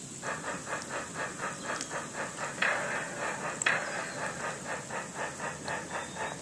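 Rhythmic splashing of a swimmer kicking at the surface of a pool, about four splashes a second, with two louder splashes near the middle.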